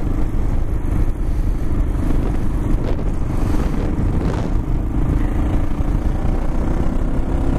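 Kawasaki KLR650's single-cylinder engine running steadily at a cruise, with wind rumble on the helmet-mounted microphone.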